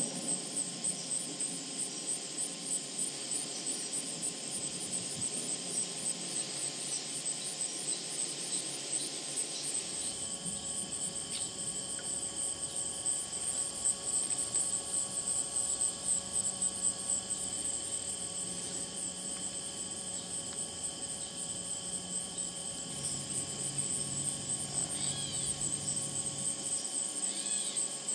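Chorus of singing insects: a steady, high-pitched, fast-pulsing trill, with fainter steady insect tones beneath it. A faint low rumble runs under it from about a third of the way in until near the end.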